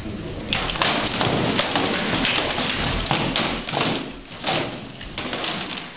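Rapid flurry of rattan sword blows cracking against shields and armour, starting about half a second in and thinning to a few scattered strikes after about four and a half seconds.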